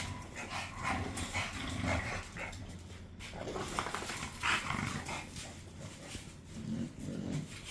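Large dogs making short, irregular sounds as they are moved about.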